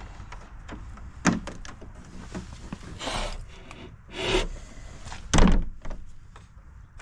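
A wooden plank door being opened and shut: a sharp latch click about a second in, a couple of scraping swishes as it swings, then a thud as it is pushed closed, the loudest sound, about five seconds in.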